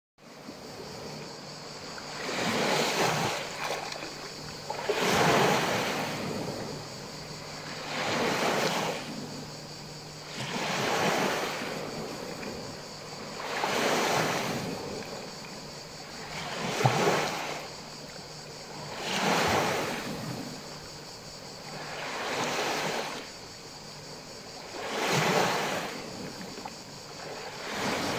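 Small sea waves breaking and washing up over sand and around rocks, each wave a rising and falling rush of water. The waves come in a steady rhythm, about one every three seconds.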